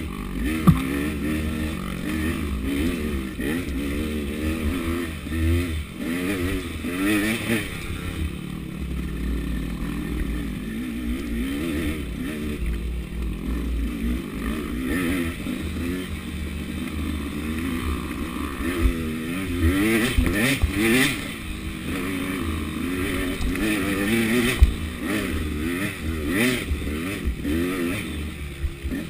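KTM 200 two-stroke dirt bike engine revving up and down over and over as it is ridden along a rough trail, with a couple of sharp knocks about a second in and near the end.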